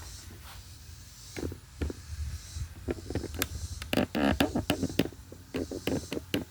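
Handling noise: a quick run of light clicks and knocks with short scrapes, starting about halfway through, over a low steady hum.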